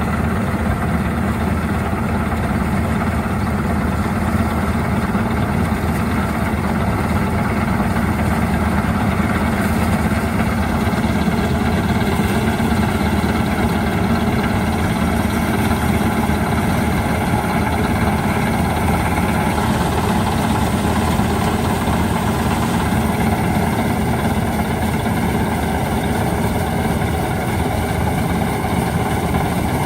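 Preet 987 combine harvester's diesel engine running steadily at a constant speed.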